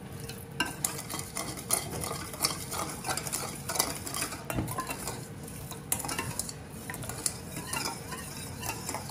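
A spoon stirring a thin liquid sauce in a small stainless-steel bowl, with irregular light clinks and scrapes against the metal.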